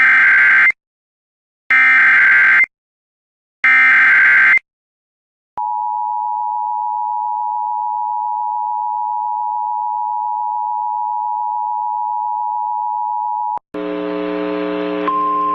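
Emergency Alert System tones: three one-second buzzing bursts of SAME digital header data, then the steady two-tone attention signal held for about eight seconds. The tone cuts off and, near the end, a different steady sound of several tones together begins.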